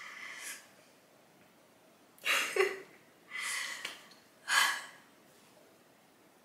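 A woman's emotional breathing as she chokes up near tears: four short, breathy gasps and sniffs, the first right at the start and three more about a second apart between two and five seconds in.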